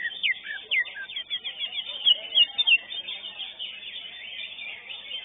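Cucak hijau (green leafbird) singing: a fast run of sharp chirps and whistled notes, loudest over the first three seconds, then a softer, steady twittering.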